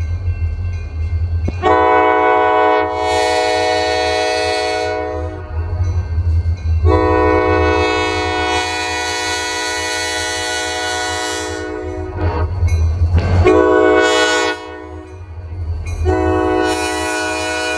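Diesel freight locomotive's multi-chime air horn sounding the grade-crossing signal: two long blasts, one short and another long one held to the end, over a steady low rumble.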